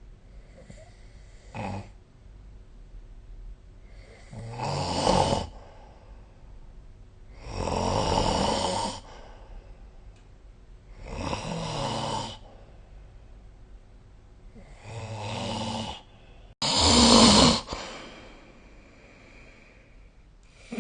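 A person snoring in sleep: a short snore about a second and a half in, then five long snores every three to four seconds, the loudest near the end.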